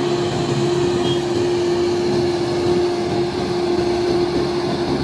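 Engine of a Grove GMK6300L all-terrain mobile crane running steadily as the crane drives along the road, a constant low drone.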